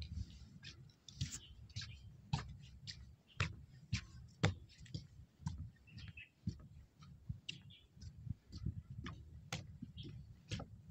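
Irregular clicks and light knocks, about one or two a second, over a low rumble.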